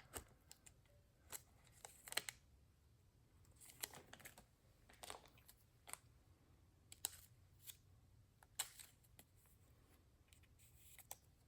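Faint scattered rustles and small clicks of a trading card being handled and slid into a soft plastic penny sleeve.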